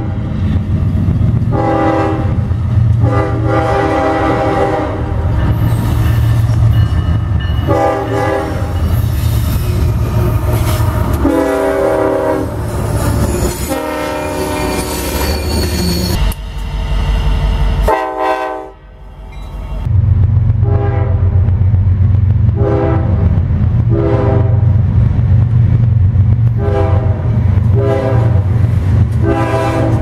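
Freight diesel locomotive air horns blowing long and short blasts over the low rumble of the locomotives' engines. After a short gap about two thirds of the way in, a run of short horn blasts follows, about one a second.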